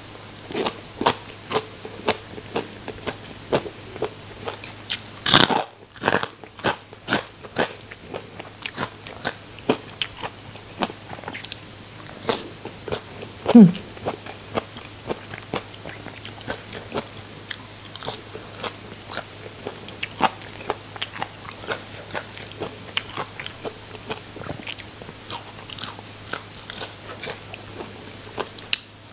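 Close-miked crunchy bites and chewing of crisp fried food, with many sharp irregular crunches. About halfway through there is a brief low falling vocal sound, the loudest moment.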